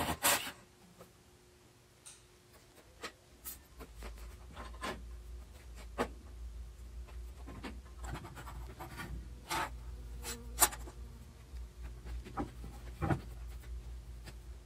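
A cordless drill's screw-driving burst cuts off just after the start, followed by scattered light knocks, clicks and scrapes as the wooden bench pieces and the steel bench vise are handled, over a low steady hum.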